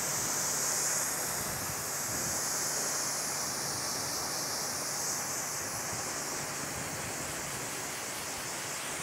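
Pressure washer jet spraying water into a car's engine bay: a steady hiss of the spray and water splashing over the engine, the first rinse of an engine bay clean.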